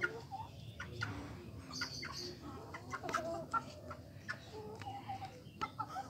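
Aseel chickens clucking in short, repeated calls, mixed with brief high cheeps from the chicks.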